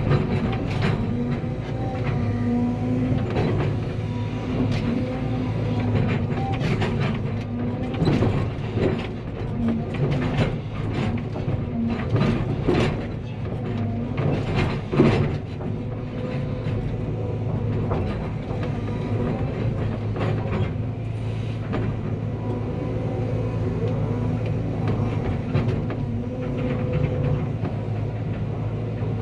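Cat 320 excavator's diesel engine running steadily under working load, with a run of sharp mechanical knocks and clanks through the middle stretch as the machine works.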